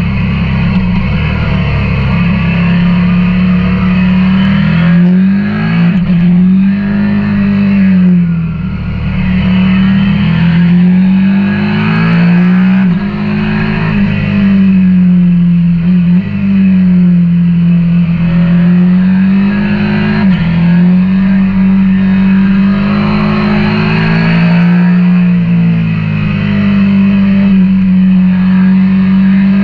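KTM 890 Duke R parallel-twin engine heard onboard while riding, its note rising and falling over and over with the throttle, with several sudden jumps in pitch. Wind rush runs underneath.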